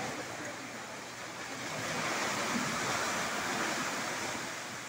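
Sea waves washing against the rocks of a sea cave: a steady rush of surf that swells about two seconds in and eases off near the end.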